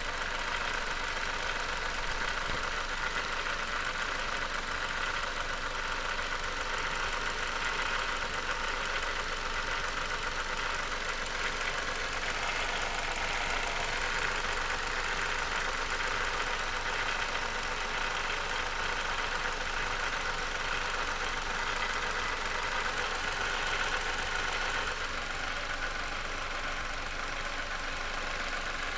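2009 Dodge Caliber running with a steady rattling noise whose cause the owner does not know. It gets slightly quieter near the end.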